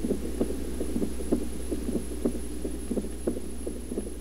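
Outro sound bed: a steady low hum under a quick, uneven series of soft pulses, several a second, slowly fading.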